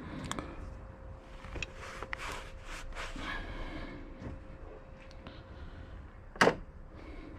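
Hand tools and engine-bay parts being handled: scattered small clicks and rustling, with one sharp knock about six seconds in.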